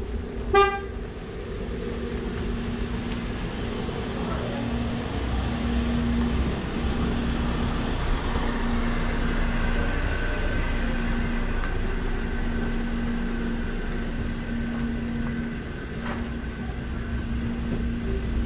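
A short vehicle horn toot about half a second in, then a steady low mechanical hum with street rumble.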